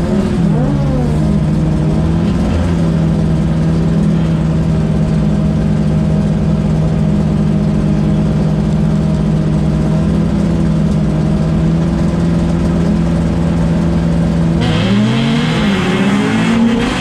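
Citroën jokkis race car's engine, heard from inside the stripped cabin, held at steady high revs on the start line for a long stretch. Near the end it revs up and down as the car launches and shifts gear.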